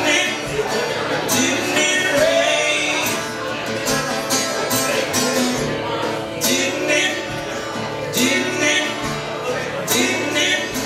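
A man and a woman singing together to a strummed acoustic guitar, a live country-gospel style duet.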